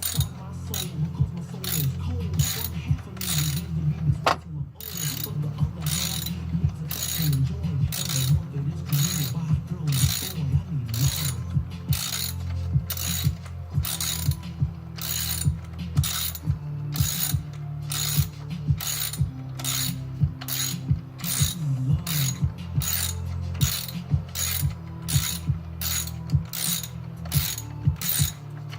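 Socket ratchet wrench clicking in steady repeated strokes, roughly one to two a second, as a spark plug is turned in the cylinder head. A steady low hum runs underneath.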